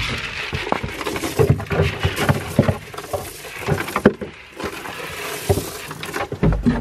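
Dry hay rustling as it is dropped into a wooden slatted feeder, with scattered knocks as young goats jostle against the boards.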